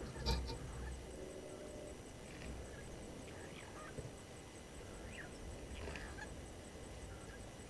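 Bird calls: one loud, harsh call just after the start, then several fainter, short calls with quick pitch sweeps.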